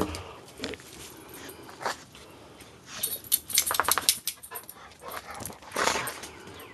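A dog moving about and playing: a run of quick clicks and rattles about three to four seconds in, and a short breathy burst near the end.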